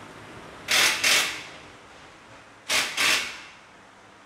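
Workshop tool noise: two pairs of short, loud mechanical bursts, the first about a second in and the second near three seconds in.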